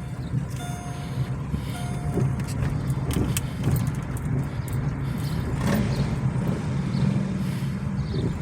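Car being driven: steady low engine and road rumble. A repeating beep tone sounds during the first two seconds, and there are a few light clicks after that.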